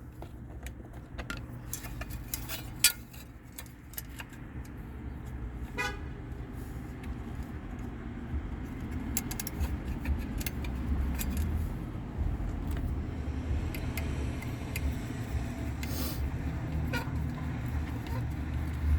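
Scattered metallic clicks and taps of the inducer motor mount and screws being handled and fitted, most of them in the first few seconds, over a steady low machinery hum that grows a little louder after about four seconds.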